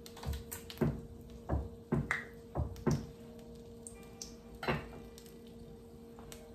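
Kitchen knife knocking on a wooden cutting board while garlic is prepared: about seven irregular strikes over the first five seconds, then only a steady low hum.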